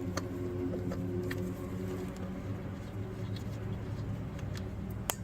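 A vehicle engine running steadily as a low hum, with a few light clicks and a sharp snap near the end.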